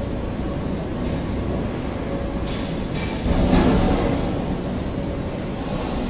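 Steady low mechanical rumble with a louder surge of noise about three seconds in.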